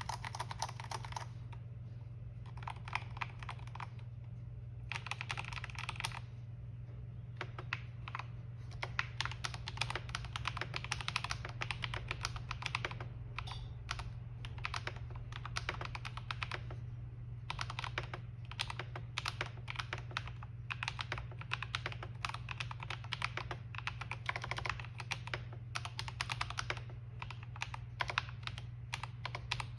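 Typing on a Corsair K95 mechanical keyboard fitted with KTT Rose and Akko CS Silver linear switches: rapid key strokes and key bottom-outs, in short bursts at first and then in long near-continuous runs with brief pauses. A steady low hum lies underneath.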